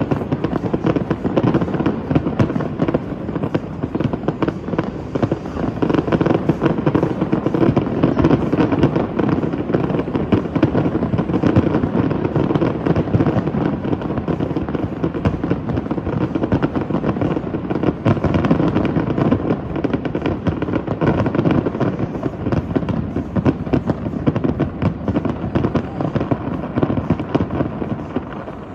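A dense, continuous barrage of fireworks bursts and crackle, easing off near the end.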